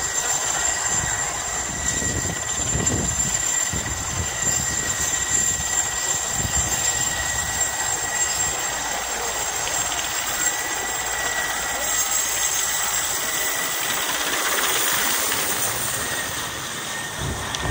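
Mil Mi-8-family twin-turbine transport helicopter taking off and flying low overhead: a steady high turbine whine over loud rotor noise.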